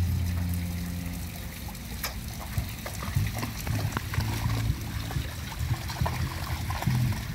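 Water splashing and sloshing as a Samoyed and a Keeshond puppy wade through a shallow fountain pool, over background music with a low, stepping bass line.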